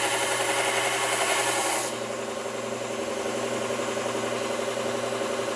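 Belt grinder running with a steel chisel held against the abrasive belt in an angle guide, grinding its bevel with an even hiss. The grinding stops suddenly about two seconds in, leaving the motor and belt running with a steady hum.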